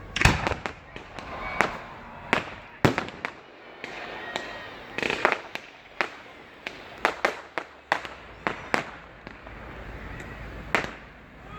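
Fireworks going off: a string of sharp bangs at irregular intervals, some coming in quick clusters.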